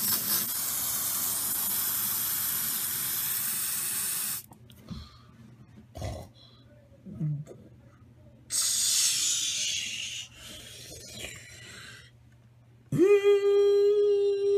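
Spray-like hissing made by a person's mouth in imitation of a car wash: one long hiss of about four seconds, then a shorter one, and near the end a steady, even-pitched hum that starts suddenly.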